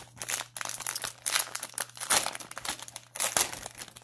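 Plastic wrapper of a cello pack of trading cards crinkling in irregular bursts as it is handled and torn open.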